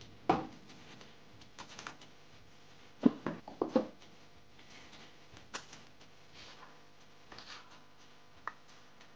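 A few light knocks and clicks of kitchen handling as water apples are cut in half and put into a plastic bowl, with a quick cluster about three seconds in and single taps later.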